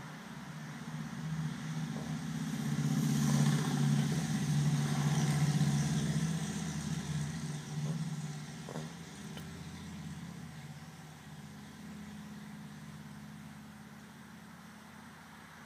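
A passing car: engine and road noise swell about two seconds in, are loudest around four to six seconds in, then fade slowly away.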